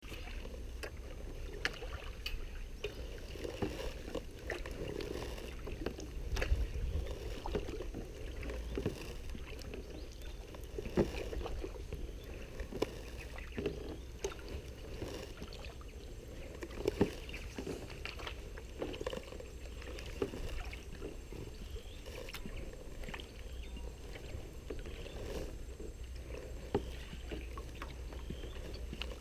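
Kayak paddling: paddle blades working the water, with irregular sharp knocks and clicks, such as a paddle striking the hull, over a steady low rumble.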